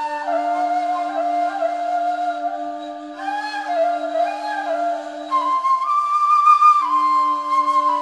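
Two kavals, Anatolian end-blown flutes, playing a free improvisation: one holds a steady low note while the other plays a wandering melody above it. The held note breaks off about five and a half seconds in and comes back near the end.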